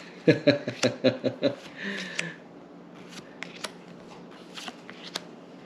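Pokémon trading cards being handled and flipped through, with sparse sharp clicks and snaps of card against card. A brief murmured voice sounds in the first second and a half.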